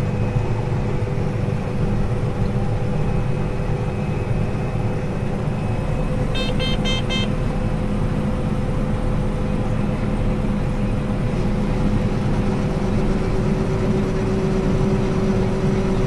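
Combine harvester running steadily under load, heard from inside the cab, with a quick run of short electronic beeps about six seconds in. A further steady hum joins about eleven seconds in as the combine begins unloading corn into the grain cart.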